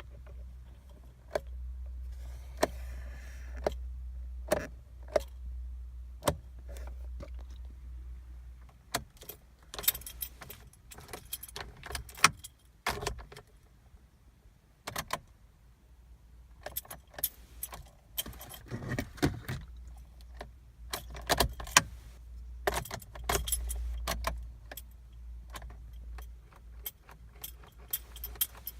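Car keys jangling on their keyring, with irregular clicks and rattles as the ignition key is worked again and again. The engine never cranks or runs: the car is dead and no power reaches the starter.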